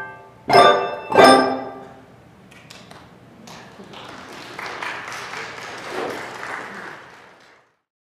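Handbell choir striking two final chords less than a second apart, each left to ring out. Then a few seconds of applause that cuts off abruptly near the end.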